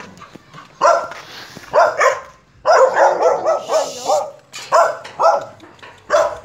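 A dog barking repeatedly in short bursts with brief pauses, including a quick run of barks about three seconds in.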